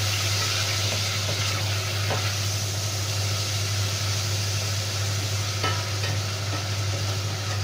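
Garlic and chicken pieces sizzling as they sauté in a stainless steel pot, stirred with a wooden spoon, with a couple of light knocks of the spoon against the pot. A steady low hum runs underneath.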